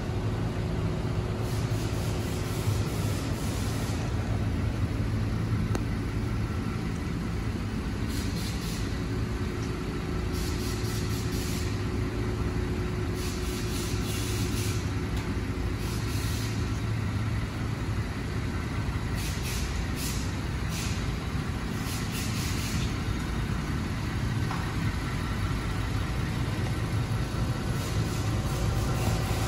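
2020 Ford Transit AWD van running steadily on a lift, a low even hum from the engine and drivetrain, with short bursts of hiss several times.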